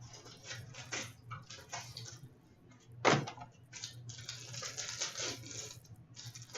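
Packaging being handled and opened for a sealed box of hockey cards: crinkling and rustling of wrapper, with a sharp loud tear about three seconds in and a longer stretch of crinkling soon after.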